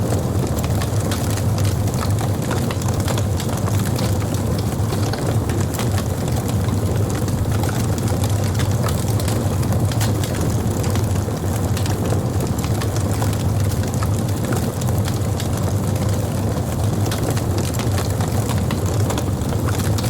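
Campfire of burning wood: scattered crackles and pops over a steady low rumble.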